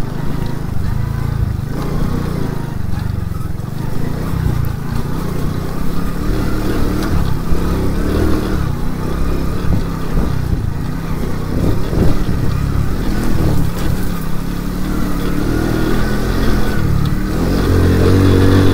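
Racer moped engine running under load in a low gear over a bumpy track, its pitch and loudness rising near the end as it revs up.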